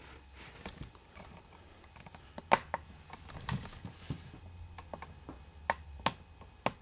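Scattered light clicks and taps of hand handling, at irregular intervals and loudest about two and a half seconds in, over a low steady hum.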